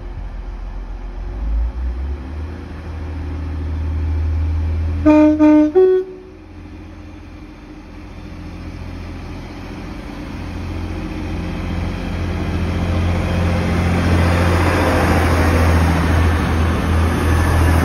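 Class 185 diesel multiple unit sounding its two-tone horn about five seconds in: a short low note, then a higher one. Its diesel engine rumble and wheel noise then grow steadily louder as it comes past close by.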